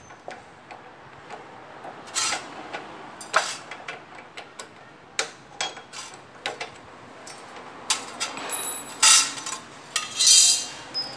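Irregular metallic clinks and scrapes as a drilled metal disc and metal chips are handled on the cast-iron table of a bench drill press. Near the end there are louder scraping rustles as metal swarf is swept off the table.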